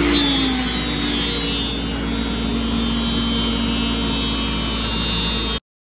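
Woodworking power tool running as it mills a cherry board. Its motor hum drops slightly in pitch just after the start, as the cut takes load, then holds steady. The sound cuts off suddenly near the end.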